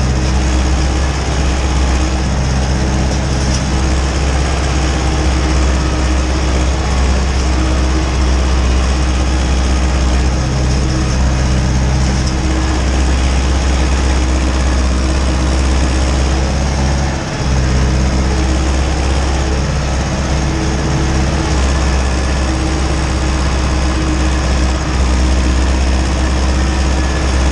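Ursus tractor's diesel engine running steadily under load, heard from inside the cab while it pulls a cultivator through the soil. The sound dips briefly once, about two-thirds of the way through.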